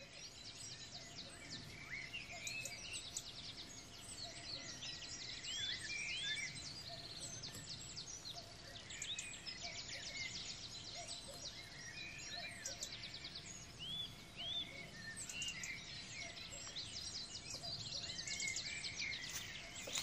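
Several wild birds singing and calling, a dense mix of short chirps and rapid trills, over a steady low hum of outdoor background noise.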